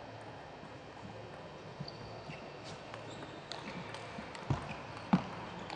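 Table tennis rally: the celluloid ball clicking lightly off paddles and table, then two sharp, loud hits about two-thirds of a second apart near the end, over a low steady hall hum.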